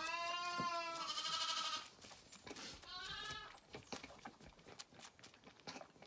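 Zwartbles lambs bleating: one long bleat of about two seconds, then a shorter bleat about three seconds in.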